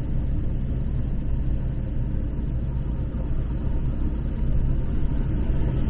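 Storm-force wind buffeting an RV, heard from inside as a steady low rumble that is shaking the vehicle.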